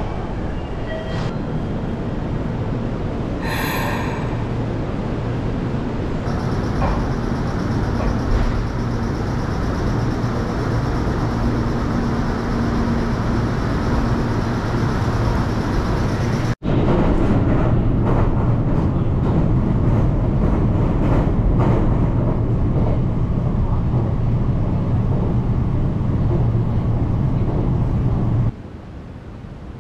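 Station concourse crowd noise, then an electric commuter train running at a platform with a steady hiss and a faint hum. After a sudden cut about 17 s in, the steady low rumble of riding inside a moving train carriage, ending abruptly near the end.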